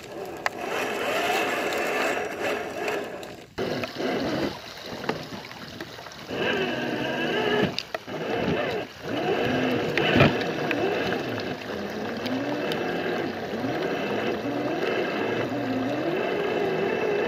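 RC4WD Trail Finder 2 scale RC truck's electric motor and gears whining as it crawls through mud and water, the pitch rising and falling with the throttle and dropping out briefly a couple of times. There is a single sharp knock about ten seconds in.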